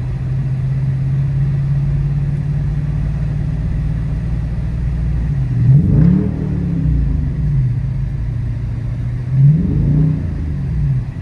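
Dodge Charger R/T's 5.7-litre Hemi V8 running at a steady cruise, then revving up sharply and falling back twice, about six and ten seconds in. Heard from inside the cabin with the windows open.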